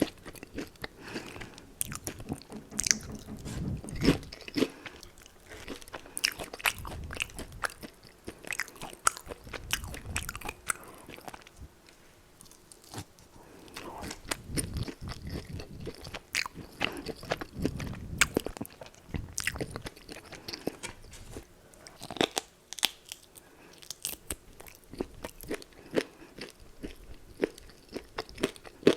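Close-miked biting and chewing of crispy fried chicken: sharp crunches and crackles over wet chewing, in irregular bouts with brief pauses.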